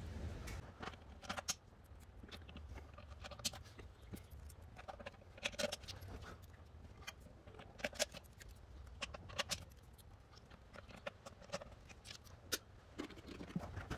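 Faint, irregular metallic clicks and ticks of intake manifold bolts being handled and dropped into their holes.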